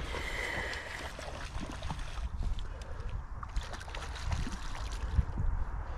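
A hooked trout splashing and thrashing at the lake surface as it is played close to the bank, with low wind rumble on the microphone.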